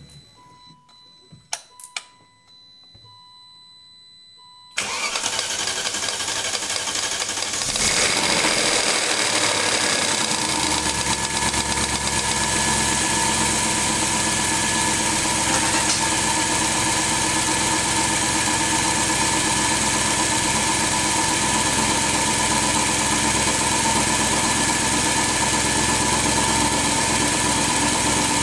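BMW 540i V8 cranking and catching about five seconds in, then running at a steady cold idle on its first start after a timing chain guide replacement, sounding smooth. Before it starts, a few clicks and a short run of beeps.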